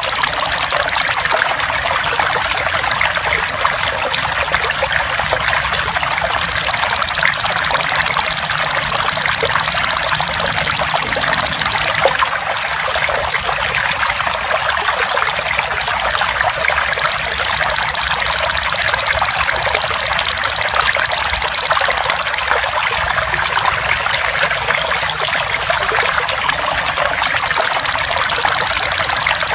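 Water trickling steadily, overlaid with the loud, high, buzzing trill of a belalang emas (golden grasshopper). The trill switches on for about five seconds and off for about five seconds, sounding at the start and again at about 6, 17 and 27 seconds in, as a looped songbird-training recording.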